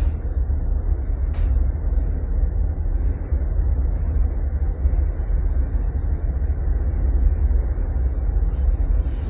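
Steady low rumble inside a moving cable car cabin as it travels up the cable, with a faint click about a second and a half in.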